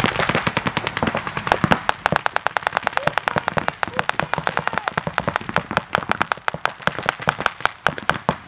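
Paintball markers firing rapid strings of shots during a speedball game, many sharp pops a second with no let-up.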